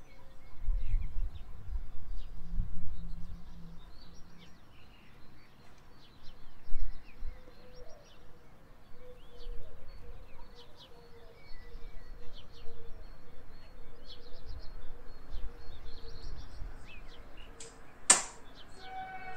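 Small birds chirping outside, with scattered low thumps of household handling. Near the end comes a single sharp metallic clang from the stainless steel pedal bin.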